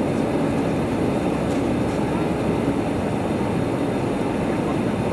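Steady cabin noise inside an Airbus A320-214: the low, even rumble of its CFM56 engines and the airflow, heard from a seat over the wing.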